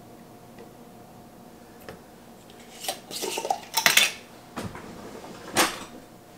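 Kitchen utensils knocking and clinking against dishes while dry ingredients are measured out. A burst of clatter comes about three seconds in, followed by two single knocks.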